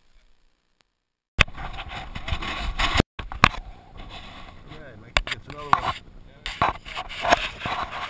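Near silence, then from about a second and a half in a loud, steady rush with scattered sharp knocks and bumps in an aluminium boat while a bass is played on rod and reel, with a few short voice sounds.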